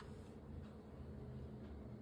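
Quiet room tone: a faint, steady low hum.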